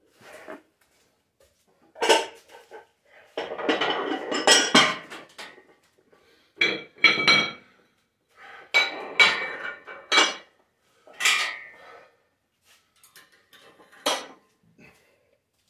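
Iron weight plates clanking and clinking against each other and the steel barbell as they are loaded for a set: a string of separate metallic clanks, some in quick clusters, with a brief ringing after several of them.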